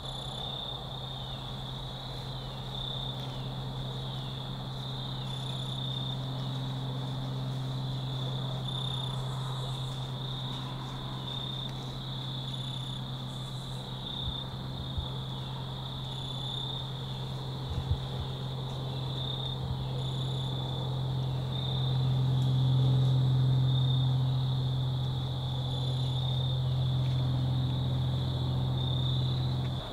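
Crickets chirping in a steady high chorus of repeated chirps. Under them runs a steady low hum that grows louder in the last third. A couple of faint knocks fall near the middle.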